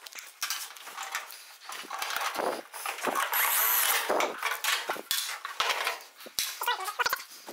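Power drill driving screws into a steel rocker panel, one run of about a second in the middle, among repeated clanks and taps of metal panels and clamps.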